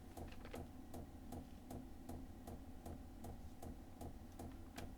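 Diesel air heater's fuel dosing pump ticking steadily, about two and a half clicks a second, over the steady hum of its fan: the heater is pumping fuel during its first start-up.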